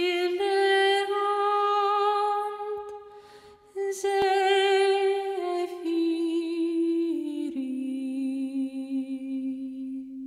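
A single voice singing a slow, wordless melody: long held notes with a slight vibrato that step gradually downward, with a short break about three seconds in.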